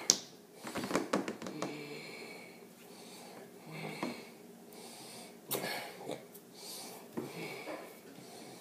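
A man making sound effects with his mouth: a run of sharp clicks near the start, then short voiced noises and hissing, breathy blasts, with no words.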